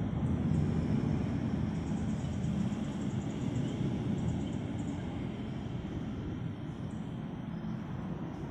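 Steady low rumble of outdoor ambience, easing a little toward the end, with faint high ticking in the middle seconds.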